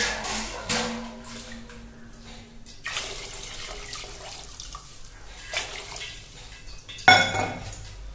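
Hot water poured in several pours into a metal pot of chicken soup, splashing into the broth, with a sharp metallic clank near the end.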